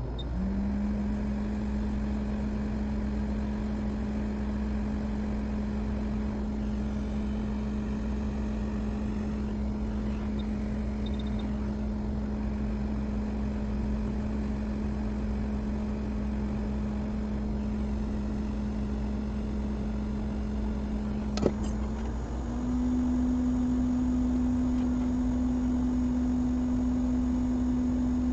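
A small electric motor, such as a blower or fan, starts up and runs with a steady hum over a low background drone. About three-quarters of the way through there is a click, and the hum steps up to a higher, slightly louder pitch, as if switched to a higher speed setting.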